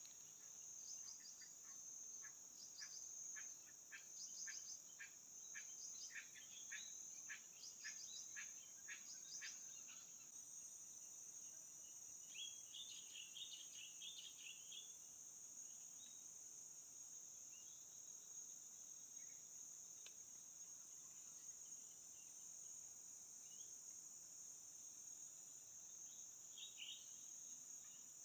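Faint, steady, high-pitched insect chorus. For the first ten seconds a short chirp repeats about twice a second, and a brief cluster of chirps follows a little before the middle.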